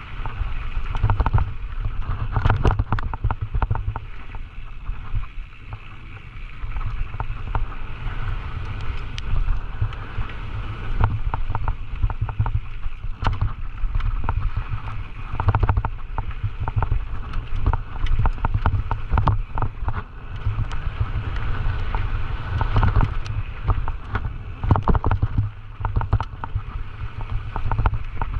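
Wind buffeting the microphone of a camera on a Scott Gambler 920 downhill mountain bike at speed, with constant clattering and knocks as the bike rattles over rough trail.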